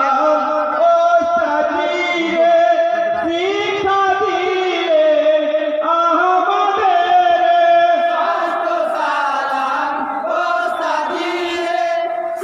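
A group of men chanting a Bengali jari song of salam together in long, held, gliding lines.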